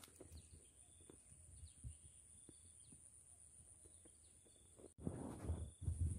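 Faint outdoor ambience, with a steady high hum and a few faint bird chirps. About five seconds in, a louder scuffing noise starts.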